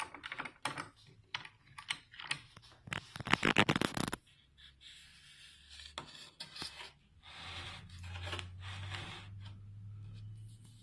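A run of light clicks, knocks and scrapes, like hands handling wood pieces and metal clamps, densest about three to four seconds in. It is followed by a softer steady rustle over a low hum.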